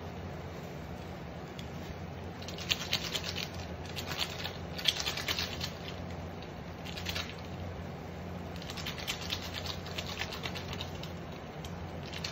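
Instant yakisoba noodles and sauce sizzling and crackling in a frying pan on the heat, coming in uneven spurts over a steady low hum.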